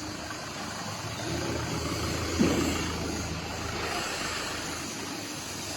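An engine idling steadily with a low hum, and one short pitched sound about two and a half seconds in.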